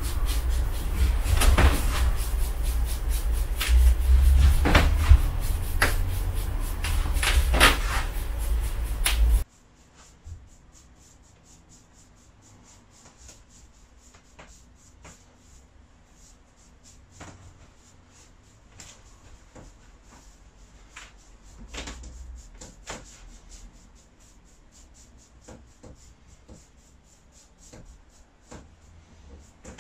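Softening brush worked over a wet paint-and-glaze coat on a board: a quick run of close, loud brush strokes and dabs that drops to much fainter strokes about nine seconds in.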